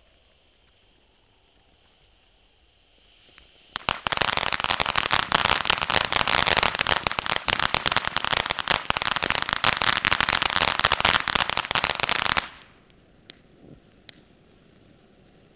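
Crystal Geyser ground fountain firework spraying with a faint hiss, then about four seconds in breaking into a dense, rapid crackle that lasts about eight seconds and cuts off suddenly. After it, a few scattered pops sound over the fountain's quieter hiss.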